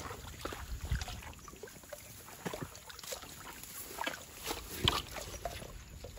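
Wire-mesh cylindrical fish trap being handled and lifted out of shallow water among weeds: irregular splashing and sloshing with scattered knocks and rattles of the trap, the sharpest about a second in and just before the five-second mark.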